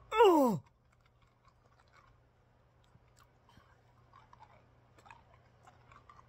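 A man's short loud cry right at the start, sliding steeply down in pitch over about half a second. Then faint clicking, wet mouth sounds as he sucks and chews three Barnett's Mega Sour hard candies at once.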